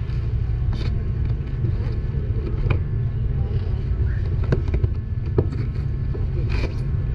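A knife slitting the packing tape on a cardboard box and the flaps being pulled open, with a few sharp clicks and rustles, over a steady low background rumble.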